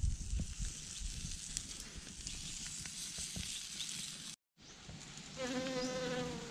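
A wood fire under a spit-roasting chicken hisses and crackles, with a few sharp clicks. After a cut, a bee buzzes at the flowers with a steady hum from about five seconds in.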